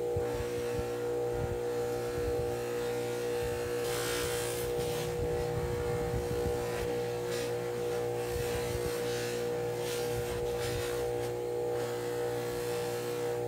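Bench polishing motor running with a steady hum, its buffing wheel spinning on a tapered spindle, while a steel wrench is pressed against the wheel in several passes that give a hissing rub, the strongest about four seconds in.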